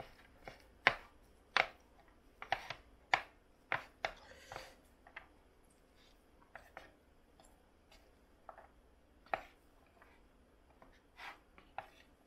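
Wooden chopsticks clicking and scraping against a plate while tossing and mixing a heap of sauced black noodles. The sharp clicks come thick and fast in the first five seconds, then more sparsely.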